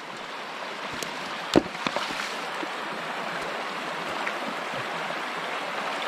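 Shallow stream running over rocks, a steady rush of water, with two sharp knocks about a second and a second and a half in.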